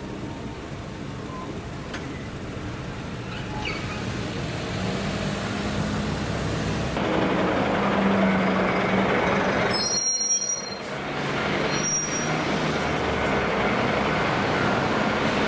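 Road traffic at a railway level crossing: car and truck engines running as the vehicles move across. It grows louder about a quarter of the way in, with a brief drop near the middle.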